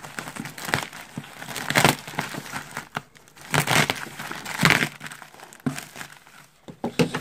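Plastic poly mailer bag crinkling and tearing as it is sawn open with a serrated knife and pulled apart by hand, in irregular rustling bursts.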